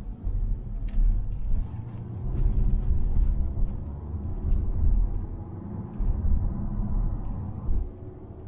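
Inside the cabin of a 2020 Mazda Atenza 2.5L on the move: a deep, uneven road and engine rumble, with faint short ticks scattered irregularly through it, the interior rattle that the car is faulted for.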